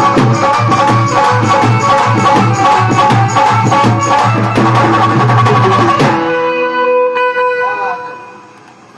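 Indian devotional music with a fast hand-drum rhythm over steady held notes. About six seconds in, the drumming stops and the held notes ring on and fade away.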